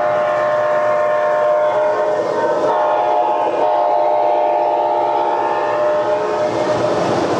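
O-gauge model diesel locomotive's onboard sound system blowing its horn: one long, steady multi-note blast that cuts off about six and a half seconds in, over the running noise of the model trains.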